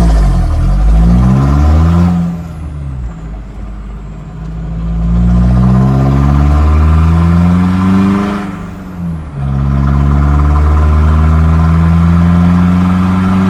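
Mazda BT-50 ute's turbocharged engine accelerating hard through the gears. The revs climb three times, dropping briefly at two gear changes, about two seconds in and about eight and a half seconds in.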